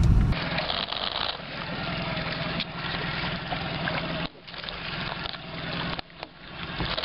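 Lake water rushing and splashing along the side of a slowly trolling fishing boat, a steady hiss that cuts out briefly twice, about four and six seconds in.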